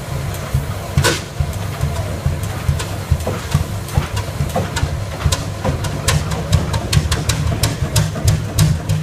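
A 100 hp Fairbanks Morse two-cylinder diesel engine firing as it starts, its exhaust giving sharp cracks that come more often from about five seconds in. Under it runs the steady deep thud of a 55 hp Muncie oil engine.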